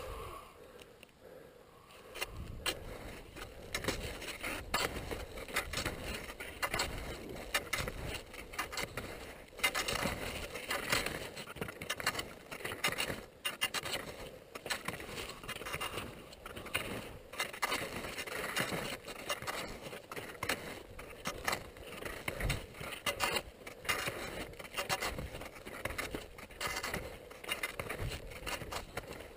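Skis scraping and hissing over snow during a downhill run, with uneven rasping chatter from about two seconds in.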